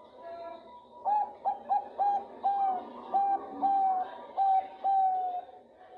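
Female zebra dove (perkutut, Thai 'bangkok' line) cooing a call to a male: a run of about ten clear notes, the first few short and quick, the later ones longer with a slight downward slide.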